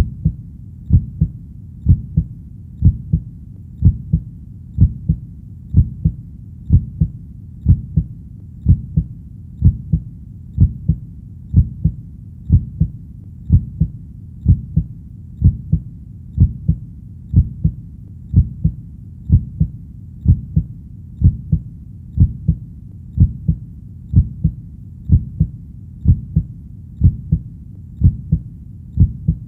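Heartbeat, each beat a low double thump (lub-dub), repeating steadily at about one beat a second.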